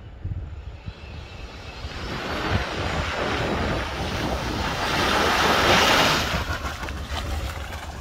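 Jeep Grand Cherokee driving through muddy water and wet mud towards the microphone, its tyres splashing and hissing in a rushing wash that builds, is loudest around five to six seconds in, then fades. Wind rumbles on the microphone throughout.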